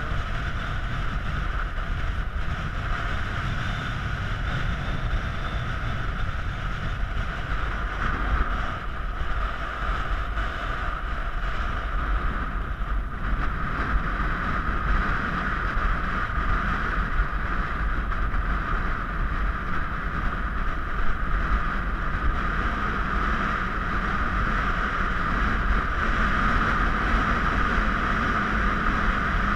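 Steady wind buffeting the microphone: a low rumble under a constant hiss.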